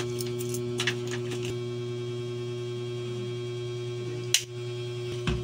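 Steady electrical mains hum, with a few light clicks and a sharper tap a little past four seconds in.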